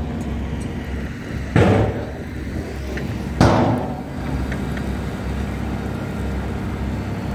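Diesel engines of asphalt paving machinery running steadily, with two loud bangs about two seconds apart.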